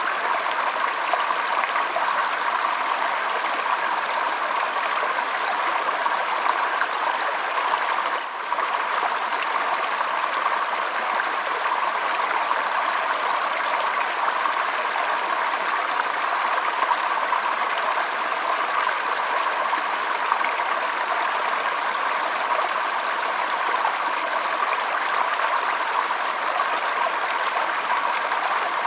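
Water running steadily in a stream, a continuous even babble with one brief dip in level about eight seconds in.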